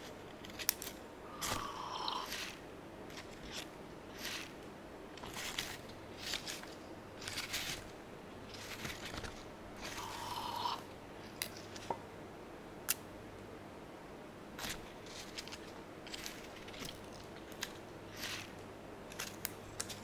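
Pothos leaves and stems rustling and crackling as they are handled and set into a glass vase, in short irregular bursts with a few sharp clicks, over a faint low hum.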